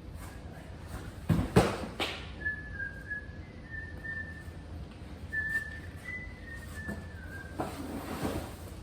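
A person whistling a short tune in a few stepping phrases, among knocks and rustling of packaging being handled, loudest about a second and a half in and again near the end.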